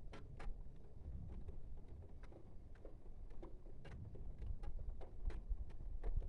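Thunderstorm with heavy rain: a low rumbling wash of rain and wind noise, with scattered sharp ticks of drops landing close by.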